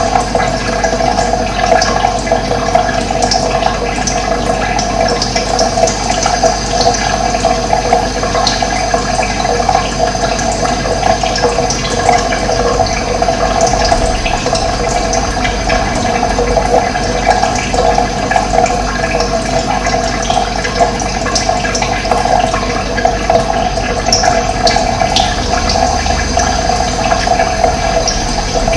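Running water flowing steadily, an even rushing with no change in level.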